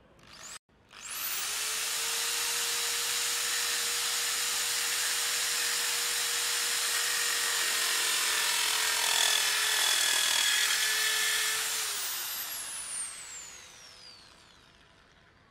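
A Bosch Professional corded drill spinning a cut-off disc mounted on a bolt, starting up about a second in and cutting through laminated particle board with a steady whine and a grinding hiss. Near the end the drill is switched off and the motor winds down with a falling whine.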